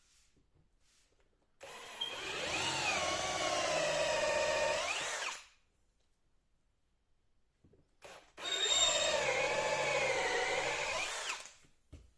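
Handheld power drill running twice, about four seconds each time. Its pitch sags as it bogs under load, then rises sharply just before it stops.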